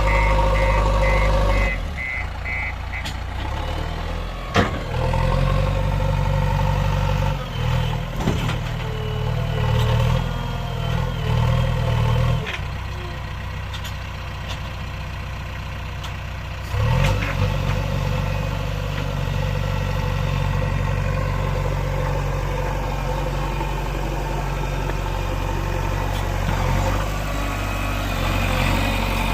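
JCB 3DX backhoe loader's diesel engine working under changing load, rising and falling in speed, easing off to a quieter idle in the middle before picking up again. A sharp metal clank comes about four and a half seconds in, and a repeated beeping sounds over the engine for the first few seconds.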